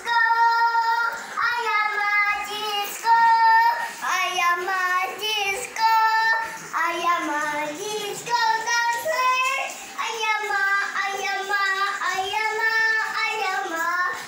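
A young child's high voice singing a tune in held, gliding notes, with no instruments.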